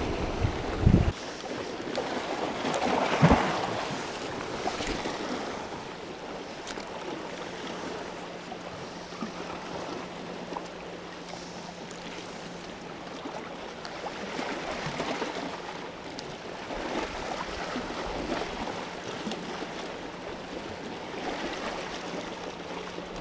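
Sea water washing and lapping against rocks, with wind buffeting the microphone. A few heavy thumps of handling in the first few seconds.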